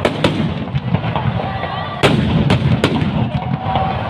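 Firecrackers packed inside a burning Ravana effigy going off: loud sharp bangs, two near the start and a quick cluster of three about two seconds in, over the steady crackle of the fire and smaller crackers.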